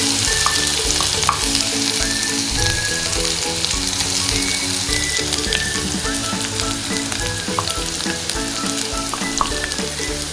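A ground spice paste of thuthuvalai leaves frying in hot oil with garlic and curry leaves: a steady sizzle, with small clicks and scrapes as it is stirred in the pan.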